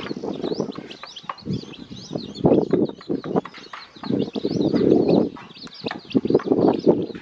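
Newly hatched chicks peeping constantly in short high chirps. Over them come several bursts of rapid, low tapping as the hen and chicks peck at feed on a plate.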